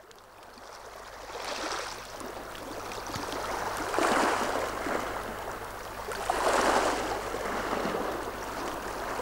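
Water washing in gentle waves. It fades in from quiet and swells twice, about four and about six and a half seconds in.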